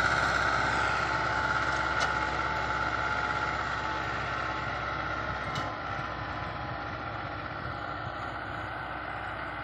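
Tractor engine working steadily under load as it pulls a disc harrow through cloddy soil, growing gradually fainter as it moves away. Two faint clicks about two and five and a half seconds in.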